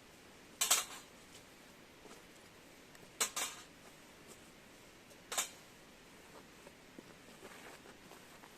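Utensil clinking against camp cookware three times, each a quick double or triple tap: about a second in, after three seconds, and after five seconds.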